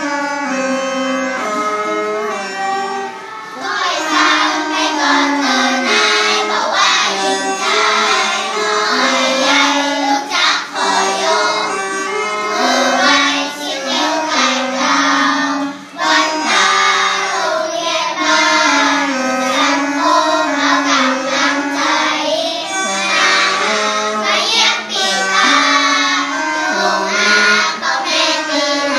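Young children singing a Northern Thai so (ซอ) song together, accompanied by pi chum bamboo free-reed pipes and a plucked sueng lute. The pipes and lute play alone at first, and the voices come in about four seconds in.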